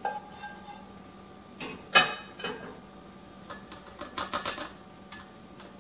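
Kitchen handling clatter: a stainless saucepan with a whisk in it set back on a stovetop with a short ringing clank, a louder knock about two seconds in, then a quick run of light clicks near the end as a plastic funnel is handled on a glass canning jar.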